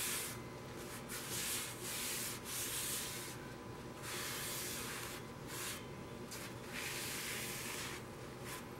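Blue paper shop towel rubbed in repeated strokes of uneven length along the smoker's metal frame, wiping it down with Windex to clean off contaminants before painting.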